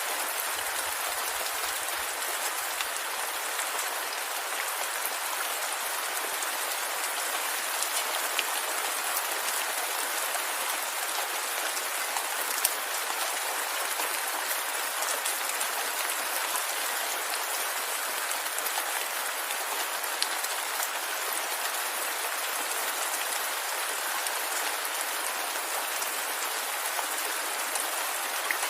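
Steady rain, with a dense hiss of drops and scattered sharper drop ticks on a surface.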